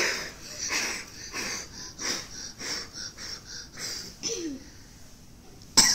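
Children blowing hard at a birthday candle, a series of short breathy puffs, roughly one every half second to second. A short sharp sound near the end is the loudest moment.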